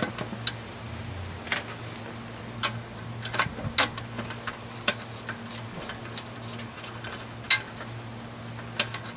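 Scattered metallic clicks and taps, irregularly spaced, as the ZF 5HP19 transmission's oil pan is fitted and its bolts are started by hand and with a hand tool.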